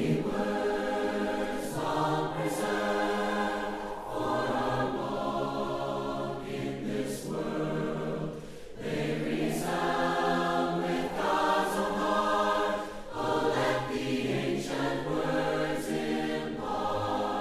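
A choir singing a hymn in harmony, in long held phrases with short breaks every few seconds.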